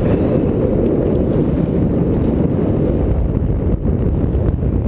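Wind buffeting a GoPro camera's microphone: a steady, loud low rumble with no pitch.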